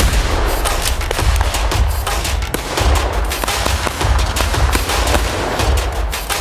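Heavy gunfire in a firefight: many rifle and automatic-weapon shots in rapid, overlapping succession over a deep rumble.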